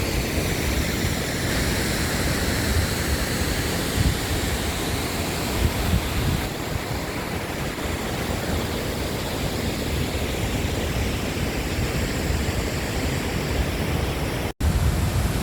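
Waterfall thundering down: a steady rushing noise with a heavy low rumble, which cuts out for an instant near the end.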